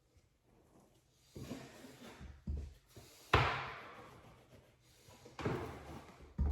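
A series of about five sudden knocks, each followed by a rustling sweep that fades over about a second, from work on wallpaper inside a bookshelf. The loudest comes about three seconds in.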